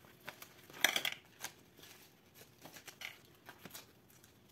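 Clear photopolymer stamps and their plastic carrier sheet being handled: light crinkling of the thin plastic and small clicks, with a brief louder rustle about a second in.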